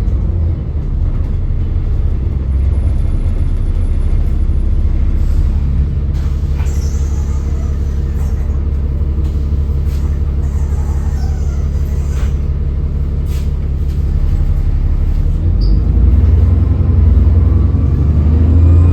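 Alexander Dennis Enviro 400 double-decker bus heard from on board, its diesel engine and drivetrain running with a deep steady rumble and a faint whine that shifts in pitch. There are a couple of short air hisses from the air system, and the engine gets louder near the end as it pulls harder.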